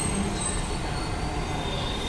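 Metro train running on its track: a steady rumble with a thin, high wheel squeal over it.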